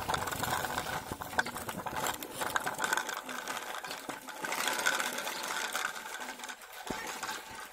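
Plastic toy tractor and trailer pushed by hand over gritty dirt, their wheels and bodies rattling and clicking continuously.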